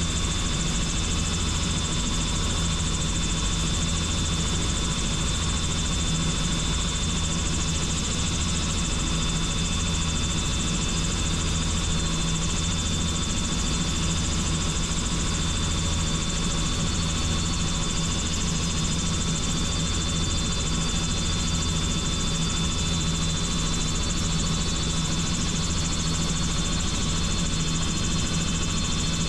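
Helicopter in flight: a steady drone of engine and rotor with a constant high whine over it.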